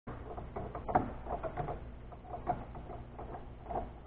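Bridgeport mill head running with a Woodruff cutter climb-milling a slot in UHMW plastic: a steady low motor hum under irregular short chirps and ticks as the cutter bites the plastic, the sharpest about a second in.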